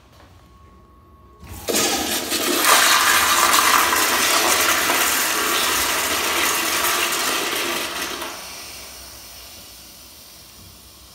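American Standard Madera toilet flushing: a sudden rush of water starts about a second and a half in and stays loud for about seven seconds, then eases off into a quieter swirl of water.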